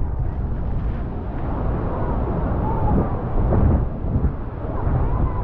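Wind buffeting the microphone over the steady, heavy rumbling roar of the Horseshoe Falls and its spray.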